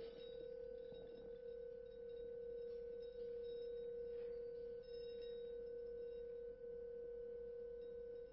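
A single steady ringing tone in the middle register, held without a break, with faint higher overtones above it. There are a few faint light scratchy touches about a second in and about four seconds in.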